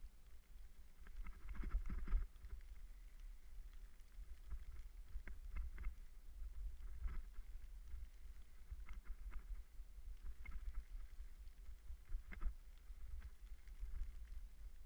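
Low wind rumble buffeting a moving camera's microphone, with scattered clicks and rattles, a cluster of them about two seconds in.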